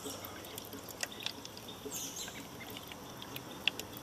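The last of a bottle of gas-line antifreeze dripping and trickling from the upended plastic bottle down a truck's fuel filler neck: faint, irregular drips and small gurgles as the bottle empties.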